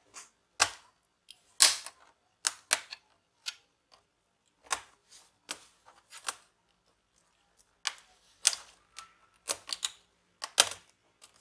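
Sharp plastic clicks and snaps, about fifteen at irregular intervals, as the retaining latches of a Dell Inspiron 15 3000 laptop keyboard are pried and released and the keyboard flexes in its bezel.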